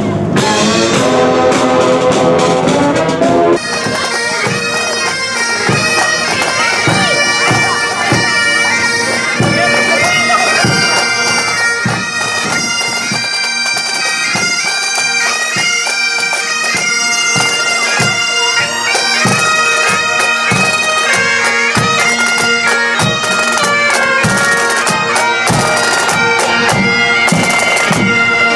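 Pipe band playing: bagpipes sounding a tune over their steady drone, with marching snare and bass drums beating time. In the first three seconds or so, a passing band's saxophones play before the pipes take over.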